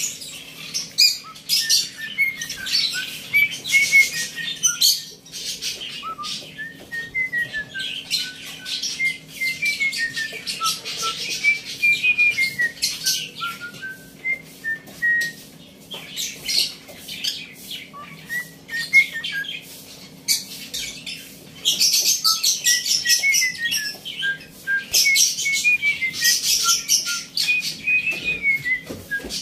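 Caged cockatiels and lovebirds chirping and chattering without pause. Through it runs a string of short whistled notes that step up and down in phrases.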